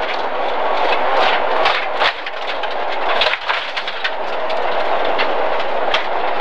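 Cabin sound of a BMW E30 325i rally car driven flat out over a rough stage: a dense rattling din with frequent knocks and jolts from the bumpy surface, the engine's note buried in it.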